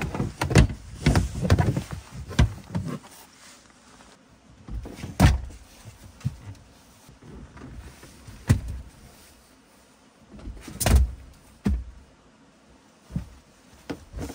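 Gear being handled in an SUV's cargo area: a wire mesh barrier clattering and knocking in the first few seconds as it is lifted out, then a series of dull thumps and clunks as the rear seat backs are folded down.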